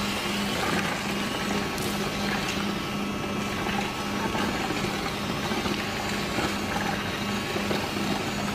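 Steady mechanical noise with a low hum that pulses evenly a few times a second.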